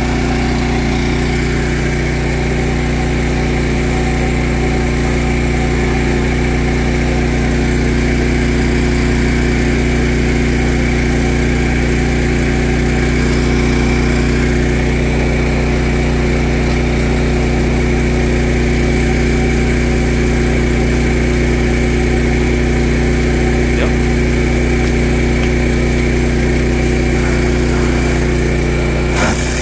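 Kohler engine driving a fire pump skid, running steadily at constant speed under load, with the hiss of a water jet from a fire hose.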